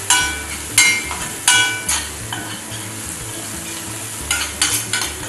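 Hot chillies and minced garlic frying in oil in a small metal saucepan, sizzling steadily, as the chilli oil is cooked. A spoon stirring the pan clinks sharply against it a few times in the first two seconds and again in a quick cluster near the end.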